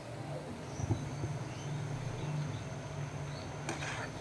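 Breaded chicken pockets frying in hot oil in a pan: a steady sizzle over a low hum. Near the end a steel spatula clicks against the pan as it goes in to turn them.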